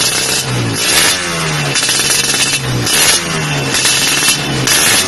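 Suzuki Satria 120 two-stroke single revved through an aftermarket AHM Malaysia racing exhaust. About five sharp throttle blips in a row, each dropping back in pitch before the next.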